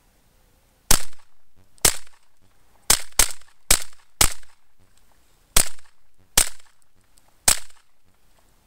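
Mossberg 930 semi-automatic 12-gauge shotgun fired nine times in quick, irregular succession, emptying its nine-round load. Each shot is a sharp report that trails off briefly, with two pairs coming less than half a second apart.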